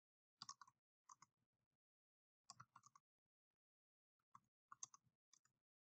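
Faint computer keyboard typing: a few short runs of key clicks with near silence between them.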